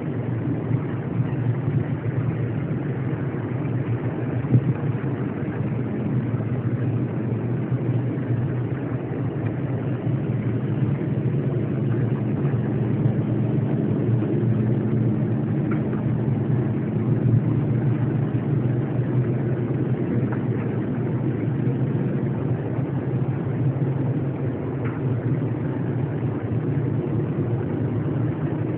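A steady low droning rumble of unidentified origin, the reported 'strange sound' in the sky. A faint steady hum runs through it, and it barely changes in level.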